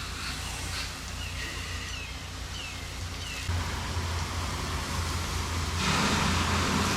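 Pressure washer running with a steady low engine drone, and a few short high chirps in the first half. About six seconds in, a loud hiss of water spray sets in, like rain on a hard surface.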